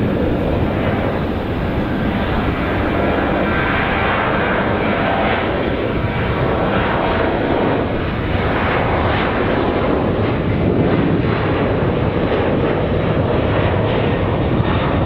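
Jet airliner noise: a loud, steady rush of engine and airflow sound, with slight slow rises and falls in pitch.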